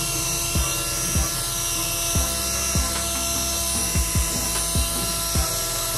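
A tiny RC helicopter's electric motor and rotor whining steadily in flight, a high buzzing drone. Background music with a steady kick-drum beat plays over it.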